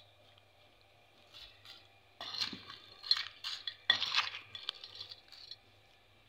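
Metal spoon tossing a dry chaat mix of potato crisps and nimko in a glass bowl, clinking and scraping against the glass with the rustle of the crisps. It comes in irregular bursts starting about two seconds in, the loudest near the start and just before the halfway mark.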